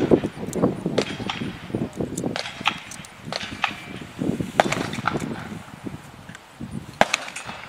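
Scattered sharp clicks and knocks, the loudest a single crack near the end.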